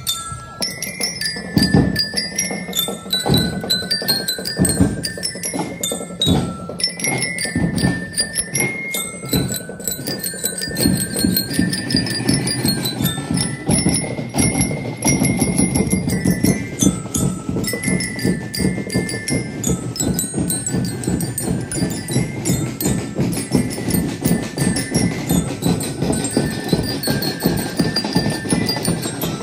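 Marching bell lyres (metal-bar glockenspiels struck with mallets) playing a melody of short ringing notes together, over percussion beating a march rhythm that grows denser from about ten seconds in.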